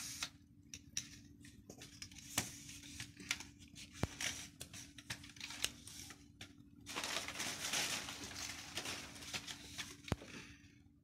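A new camera tripod being unpacked and handled: scattered clicks and knocks from its parts, with plastic wrapping rustling and crinkling, busiest from about seven to ten seconds in. A faint steady hum runs underneath.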